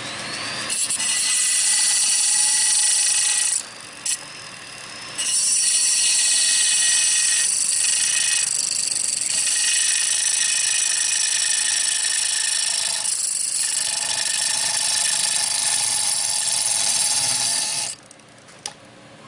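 Rotary tool with a small cutoff wheel cutting through the steel trigger guard of an AK receiver: a loud, high-pitched whine that drops away for a second or so about four seconds in, then runs on and cuts off about a second before the end.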